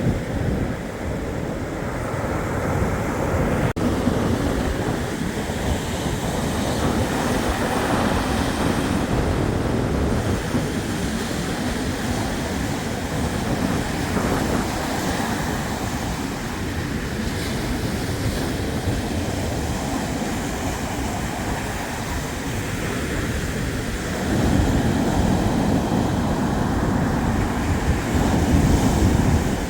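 Black Sea surf washing continuously onto the shore, with wind buffeting the microphone; the waves grow louder about three-quarters of the way through.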